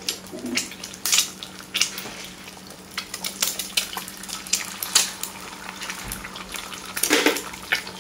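Eggs frying in hot oil in a wok: irregular sharp pops and crackles of spattering oil over a steady low hum. Partway through, a second egg is broken and dropped into the oil.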